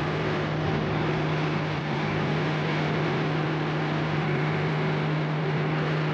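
A machine or engine running steadily, an even rushing noise with a constant low hum.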